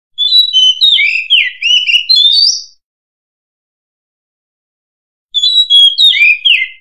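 Oriental magpie-robin singing loudly: a phrase of rapid, varied whistled notes sliding up and down, then silence, then a second phrase starting about five seconds in.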